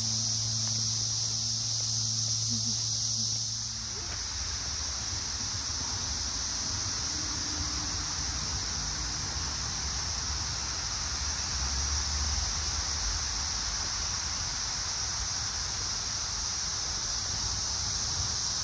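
Steady high-pitched chorus of insects in summer woodland. About four seconds in, a rougher, lower rushing noise joins it.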